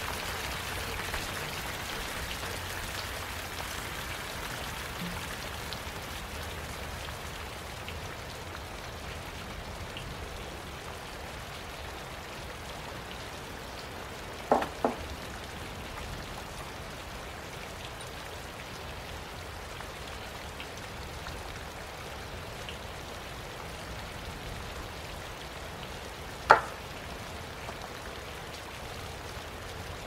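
Steady hiss of rain. A couple of short knocks come about halfway through, and a single sharper knock near the end.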